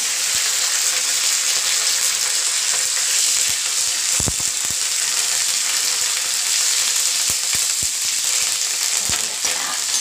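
Curry leaves, green chilli and dried red chillies sizzling in hot oil in an aluminium kadai for a tempering, stirred with a slotted spoon. A steady sizzle runs throughout with scattered sharp pops and clicks, one stronger about four seconds in.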